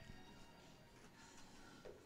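Faint background music at a near-silent level, with no clear ball strike.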